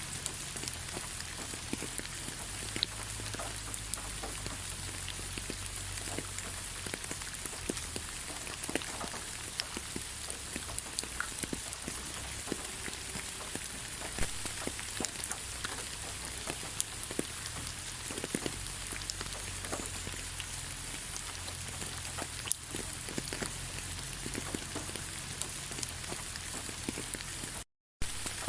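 Steady rain falling, an even hiss with many scattered individual drops ticking. The sound cuts out completely for a moment near the end.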